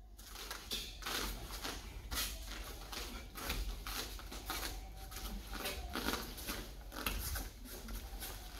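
A taekwondo uniform snapping and rustling and bare feet stepping and sliding on foam mats during a solo taekwondo form, as a string of short, sharp sounds with a few louder snaps.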